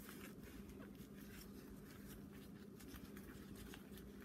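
Faint rustling and light taps of hands handling a plastic baby doll and its dress, over a steady low hum; otherwise near silence.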